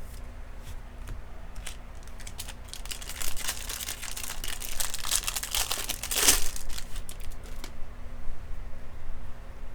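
Foil wrapper of a 2020 Topps Series 2 jumbo pack being torn open and crinkled, with a few light clicks at first and the crackling busiest and loudest in the middle, then dying away near the end.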